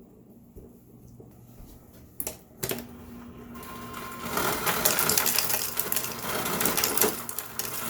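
Refrigerator ice dispenser running: a couple of clicks, then from about three seconds in the auger motor hums while ice clatters steadily out through the crusher, stopping abruptly at the end. The ice is still coming out crushed.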